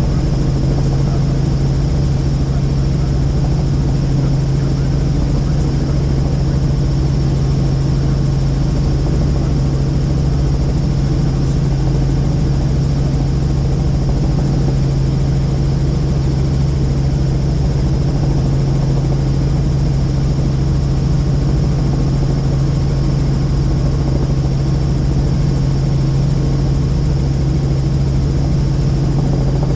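Helicopter in flight, heard from inside the cabin: a steady engine and rotor drone with a strong low hum and a thin high whine over it.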